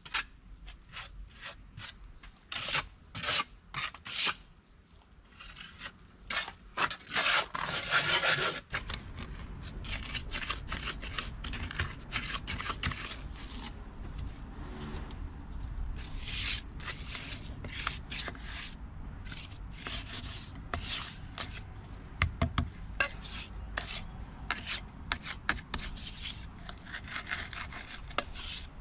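Steel trowel scraping and smoothing wet cement mortar in many short, irregular strokes. About nine seconds in the strokes become softer and closer together over a steady low rumble.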